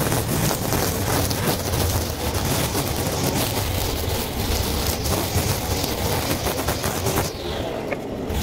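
Stihl FS 220 two-stroke brushcutter running steadily at work on grass, with many small ticks over its engine drone; the sound dulls for about a second near the end.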